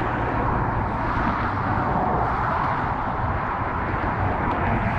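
Steady rush of road traffic crossing the bridge, with a low rumble underneath.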